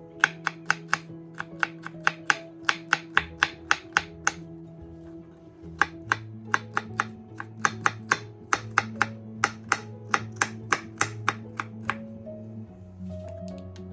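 Knife chopping on a cutting board in quick, fairly even strokes of about four a second, pausing briefly a little before the middle and stopping near the end, over background music with sustained notes.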